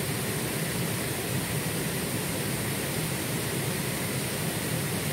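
Steady rushing of a shallow rocky forest stream running over stones.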